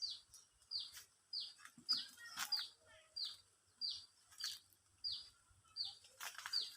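A bird calling the same short, high, falling note over and over, about once every 0.6 seconds, with a few faint knocks in between.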